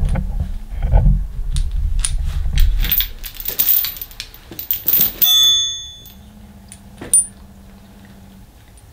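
A thick steel chain rattling and clinking on a concrete floor as it is handled along with the vise grips welded to it, with a short metallic ring about five seconds in and a single clink a couple of seconds later. A low rumble fills the first few seconds.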